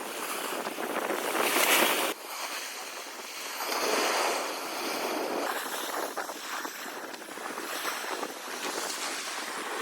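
Sea surf breaking and washing in, with wind buffeting the microphone; the surge swells loudest about two seconds in and again near four seconds.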